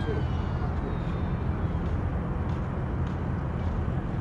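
A steady low rumble, with the thin whine of an RC float plane's motor falling in pitch and fading out in the first second or two.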